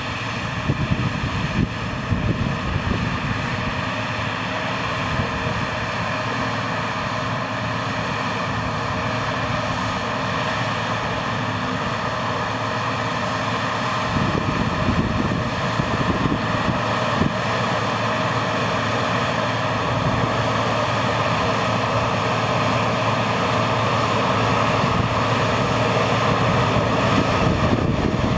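Hycat tracked drilling rig on the move, its engine running steadily. It gets gradually louder as the rig approaches.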